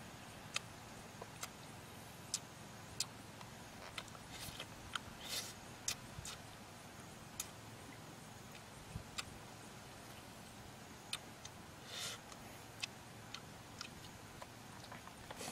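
Mouth noises of a person eating grilled fish by hand: sharp lip smacks and clicks at irregular intervals, about one a second, with a few longer smacking chews, over a low steady hiss.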